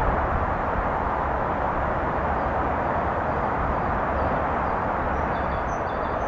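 Steady outdoor background rumble with no distinct events, with a few faint high chirps near the end.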